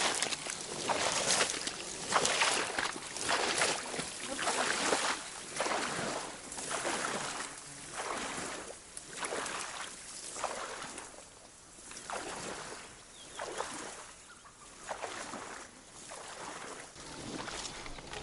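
Someone wading through knee-deep water thick with horsetail stems: each stride sloshes the water and swishes through the plants, about one step a second, growing softer in the second half.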